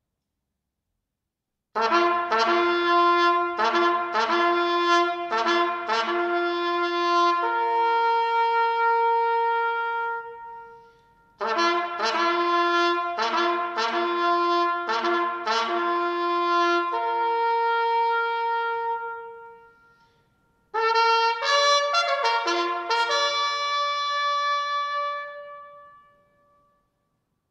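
Solo bugle call on a brass horn in three phrases. Each phrase is made of quick repeated notes climbing to a long held note that dies away, and the last phrase is shorter and reaches higher. It is sounded to end the Remembrance silence.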